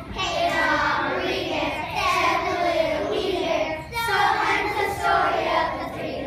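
A group of first-grade children singing a song together in sung phrases.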